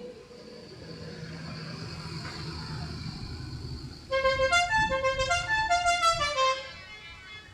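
Telolet multi-tone vehicle horn playing a quick melody of rapidly changing notes for about two and a half seconds, starting about four seconds in. Before it, a vehicle's engine grows steadily louder as it draws near.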